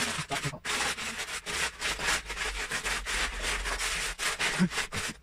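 Hands rummaging through a plastic tub of loose Lego bricks, giving a dense, continuous clatter of small plastic pieces.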